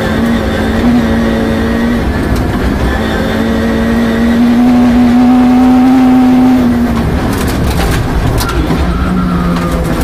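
Peugeot 306 rear-wheel-drive rally car engine at high revs, heard from inside the cabin. Its pitch climbs steadily through the middle, then drops away about seven seconds in. Sharp clicks of gravel striking the car follow near the end.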